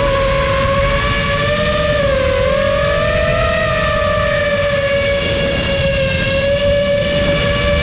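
Electric motor and propeller of the camera-carrying FPV model aircraft whining steadily in flight, the pitch dipping briefly about two seconds in and then rising back, with wind rushing over the onboard microphone.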